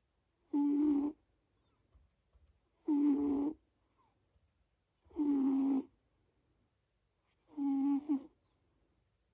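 A sleeping pet snoring: four snores, each less than a second long, coming about every two and a half seconds in an even rhythm.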